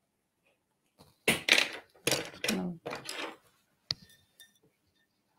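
A few seconds of indistinct voice, then a single sharp click near the end: a pencil set down on the tabletop.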